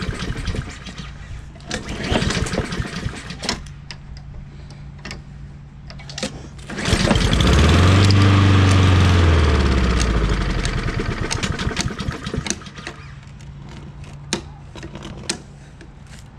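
Honda Harmony II lawnmower engine being tried again: a few short bursts, then about seven seconds in it catches and runs for a few seconds, its pitch rising and then falling as it dies out. It will not keep running, which the owner puts down to a carburettor needing cleaning, perhaps a clogged jet.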